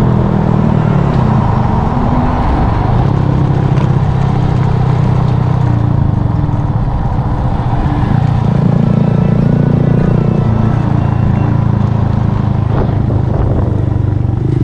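Honda Monkey's small single-cylinder engine running at road speed, with heavy wind rush over the bike-mounted microphone. The engine note fades briefly about halfway through, then comes back strongly.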